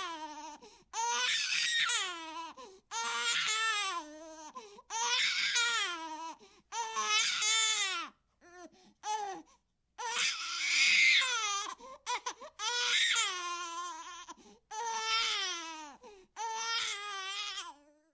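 Infant crying in about eight long wails, each a second or two long and falling in pitch at its end, with short breaks for breath between them and a few short cries around the middle.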